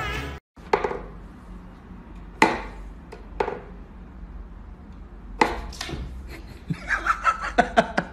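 Wooden knocks and clacks from a whack-a-mole style cat toy: a few separate sharp knocks, then a quicker run of taps near the end.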